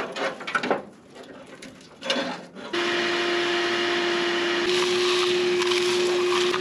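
A few knocks and rustles of handling, then a shop vacuum switches on about a third of the way in and runs steadily with a single steady whine. Its hose is sucking dirt and debris off a rusty truck frame rail.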